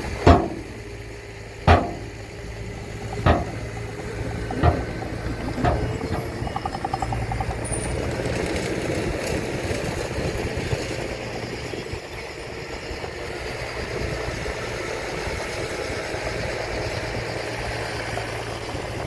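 Heavy earthmoving machinery's diesel engine running steadily, with five sharp bangs in the first six seconds, each a little quieter than the one before.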